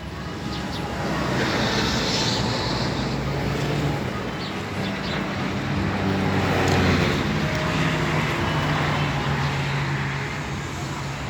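Motor vehicle engine running steadily with traffic noise: a low hum that drifts slightly in pitch under a constant rush, with a brief brighter hiss about two seconds in.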